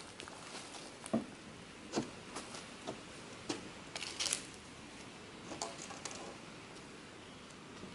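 Footsteps on grass and dry leaf litter walking away, a crunch every half second or so, growing fainter and dying out after about six seconds, leaving a faint steady hiss.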